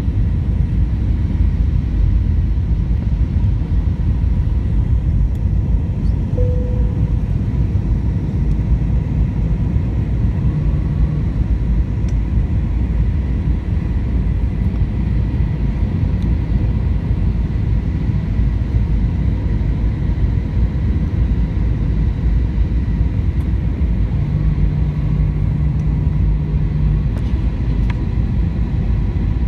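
Airbus A320 cabin noise on approach: a steady low rumble of engines and airflow heard from inside the cabin, with a faint thin whine held underneath.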